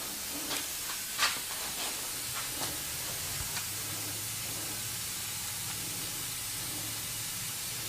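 Steady hiss with a faint low hum underneath, and a few faint clicks in the first few seconds.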